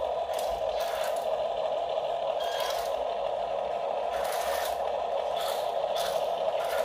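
Radio-controlled toy dump truck driving with a load of soil: a steady, high electric gear-motor whine, with short gritty scraping and rattling bursts several times.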